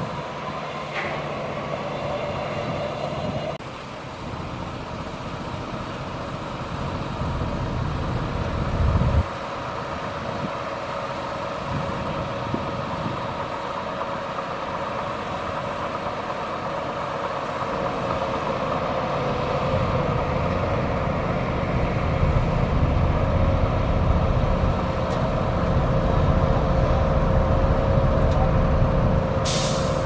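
Shantui DH17C2 crawler bulldozer's diesel engine running under load as it pushes dirt, a steady whine over a low rumble. A short hiss comes near the end.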